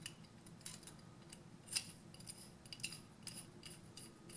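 Faint small metallic clicks and taps, a dozen or so at irregular intervals, from a gravity-feed airbrush's metal parts as it is handled.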